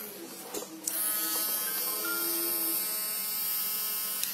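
Handheld mini electric grinder (rotary engraving tool) running with no load, a steady high-pitched motor whine. It dies down at the start, clicks back on about a second in, then is switched off near the end.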